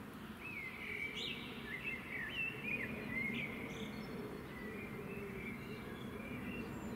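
A songbird sings a quick phrase of whistled notes that swoop up and down, loudest in the first half, with fainter notes after it, over a steady low background rumble.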